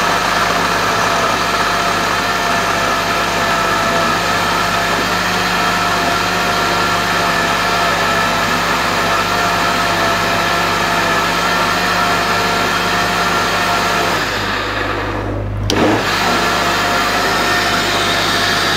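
High-speed countertop blender running flat out, blending a smoothie of fruit, leaves, water and ice cubes. Its motor sound is steady. Near the end the high whine drops out for a second or so and comes back with a click.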